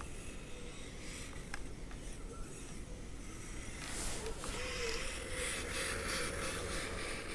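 Kyosho Blizzard RC snowcat's brushless electric motor whining as its tracks churn through deep snow. It grows louder and hissier from about four seconds in, with the whine wavering in pitch.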